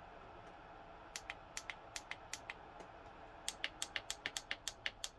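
Plastic push-buttons on the control panel of an ICE COOREL K9 laptop cooling pad being pressed in quick succession. Two runs of sharp clicks come at about five a second, and the buttons are kind of loud. A faint steady fan whir lies underneath.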